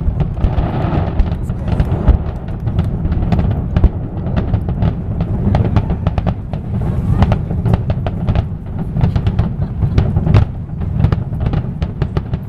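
Fireworks finale: a rapid, continuous barrage of booms and sharp cracks over a steady low rumble.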